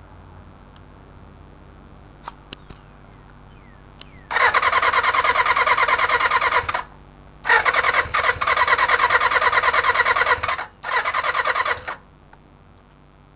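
Electric starter on a 1993 Suzuki Bandit 400 cranking the engine in three bursts, two of a few seconds and a short last one, with a fast, even pulsing. The engine never fires; the owner reports fuel, spark and battery are all good. A few light clicks come before the first burst.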